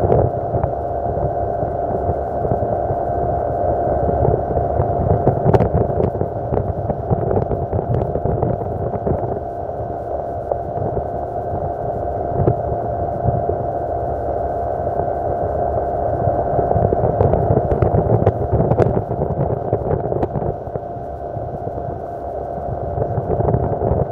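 Yamaha 40 hp two-stroke outboard motor running steadily, driving the boat along, with a few brief knocks.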